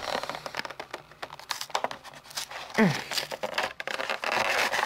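Clear plastic blister packaging and a cardboard toy box crinkling and crackling as they are handled and pulled apart, in a run of short crackles and clicks. A brief sound falling in pitch stands out about three seconds in.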